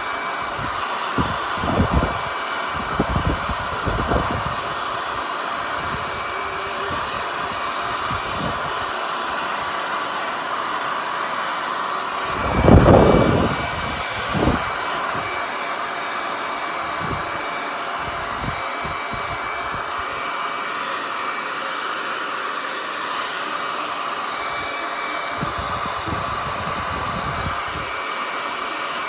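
Handheld hair dryer with a comb attachment running steadily on a wet wig, a continuous blowing noise with a faint high whine. A few low thumps break through, the loudest about 13 seconds in.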